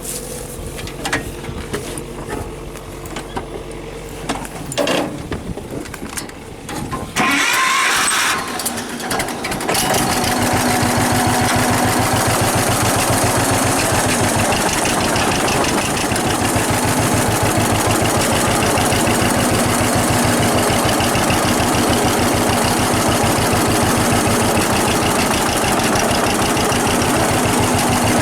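John Deere 6300 tractor engine, first a quieter steady hum with a few clicks. About seven seconds in it jumps sharply louder, and from about ten seconds on it runs steady and loud.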